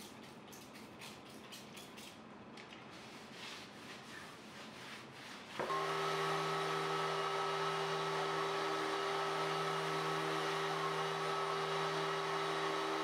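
A hand squirt bottle spraying water in quick repeated squirts. About five and a half seconds in, a random orbital sander with its dust extractor starts up and runs steadily, sanding down the grain that the water has raised on the pine boards.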